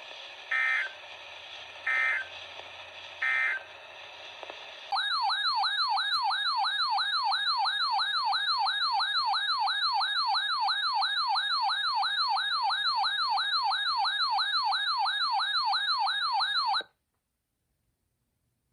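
Emergency Alert System alert opening over weather-radio hiss: three short bursts of digital header data, then a loud warbling, siren-like alert tone that sweeps up and down about two and a half times a second for about twelve seconds and cuts off suddenly.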